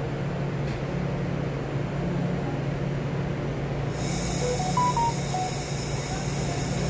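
Empty ballast hopper wagons of a freight train rolling past close by: steady rolling noise of steel wheels on rail. A few short beeps of differing pitch sound about two-thirds of the way through.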